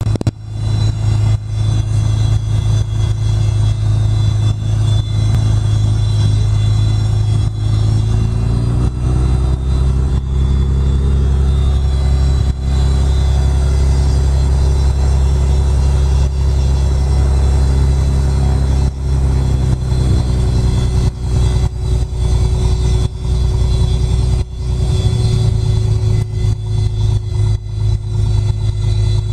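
A SOCATA TB-20's six-cylinder Lycoming engine and propeller running, heard from inside the cabin as a loud, steady drone. About eight seconds in the engine speeds up, holds the higher pitch for about sixteen seconds, then drops back to its lower speed.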